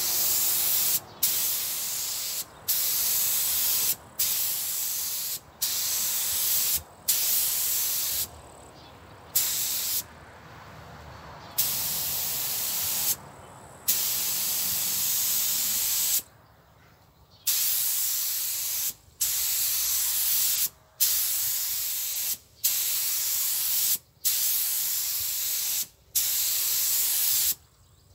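Pneumatic paint spray gun spraying paint at about 2 bar, in hissing passes of one to two seconds each with short breaks where the trigger is released, and a quieter lull about ten seconds in. This is the first coat of paint going on.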